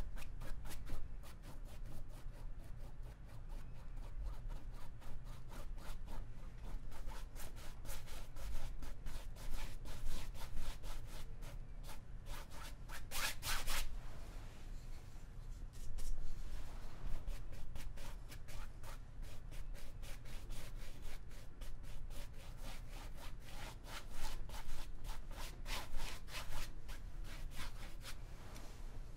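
Paintbrush rubbing acrylic paint onto canvas in many quick back-and-forth strokes, with a louder run of strokes about halfway through.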